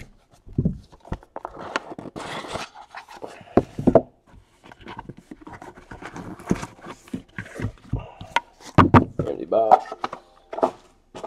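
Unboxing handling noise from a sealed trading-card hobby box: plastic wrapping crinkles and the cardboard box rubs as the box is opened. The wrapped packs come out and are stacked, with a few sharp knocks as they are set down.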